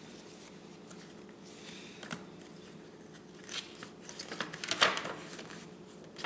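Paper rustling and crackling as a folded instruction leaflet is opened out and handled, loudest about five seconds in, over a faint steady hum.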